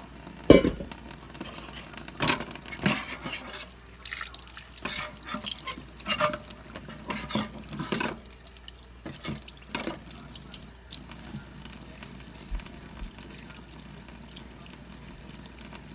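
Kitchen sink sounds: splashing and dripping water with irregular knocks and clatter of handling, the sharpest knock about half a second in, growing sparser in the last few seconds.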